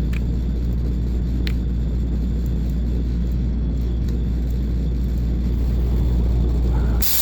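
A steady low machine rumble and hum, with a couple of faint ticks. Just before the end a loud hiss cuts in abruptly as cutting of the steel cap begins.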